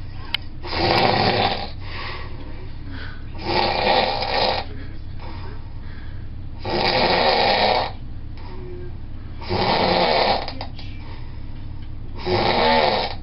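A person snoring in deep, regular breaths: five long snores, each about a second long, coming about every three seconds.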